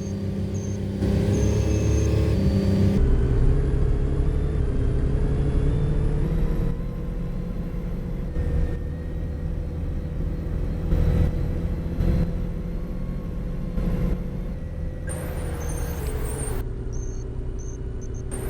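LiAZ-5292.65 city bus heard from inside while under way: the engine and driveline run steadily, picking up about a second in and shifting pitch as the bus changes speed, with body rattles and a few short knocks.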